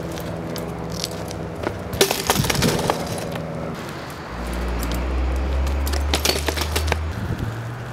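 Background music of sustained chords that change every couple of seconds, with a deep bass note entering about four seconds in and dropping out near the end. Sharp clattering hits come around two seconds in and again around six seconds in.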